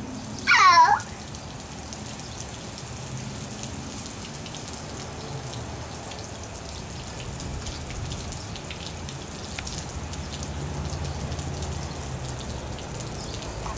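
Garden sprinkler spraying, its water pattering steadily on wet concrete. About half a second in, a short, high squeal falls in pitch.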